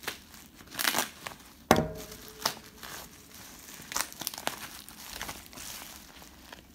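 Bubble wrap crinkling and rustling as a bubble-wrapped box is handled, with one sharp knock a little under two seconds in.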